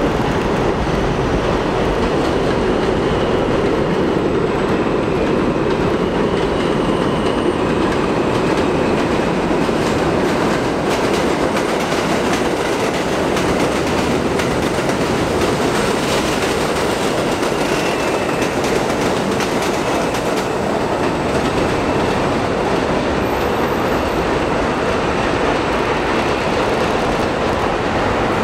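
R32 subway cars running on elevated steel track: a steady, loud rumble of wheels on rail, with clickety-clack over the joints and a faint wheel squeal now and then.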